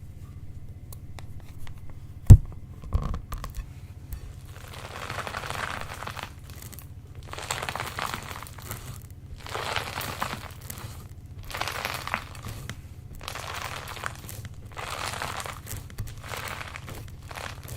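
Slime being squeezed and worked in plastic piping bags, crinkly plastic-and-slime handling noise that swells and fades in strokes about every two seconds. A single sharp knock comes about two seconds in.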